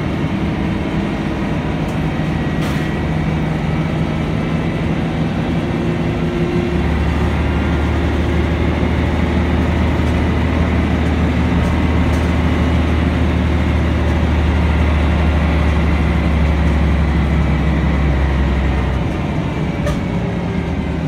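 Scania L113CRL city bus heard from inside the passenger cabin while driving: its rear-mounted engine gives a steady low drone under road noise. The low engine note grows stronger about a third of the way in and eases off again near the end.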